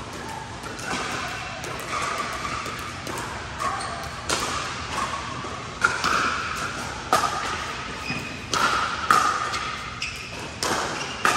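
A series of sharp knocks or thumps, about seven of them at irregular intervals from about four seconds in.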